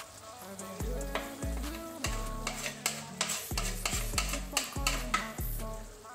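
Tomato sauce simmering and sizzling in a frying pan, with short clicks and scrapes about two to five seconds in as chopped celery is tipped off a wooden cutting board into it. Background music with a bass line plays throughout.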